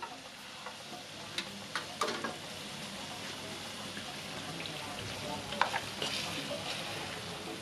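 Oily chili sambal with stink beans (sambal pete) sizzling in an aluminium wok, the flame just turned off. A metal spoon and slotted spatula scrape and clink against the pan a few times, about one and a half to two seconds in and again near five and a half seconds.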